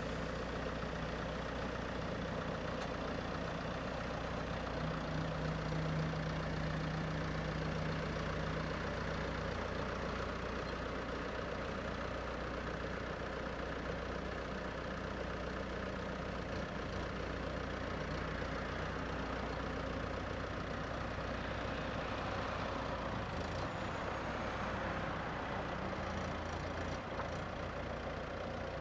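Bobcat S175 skid-steer loader's diesel engine running steadily while the loader arms raise and tip the bucket; the engine note strengthens for a few seconds about five seconds in.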